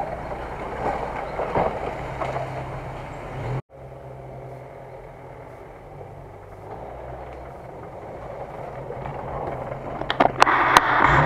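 Off-road vehicle engines running at low speed as they creep down a steep dirt slope, the sound breaking off abruptly about a third of the way in. Toward the end a UAZ-469 comes close and passes, its engine growing louder, with a cluster of sharp knocks and clatters.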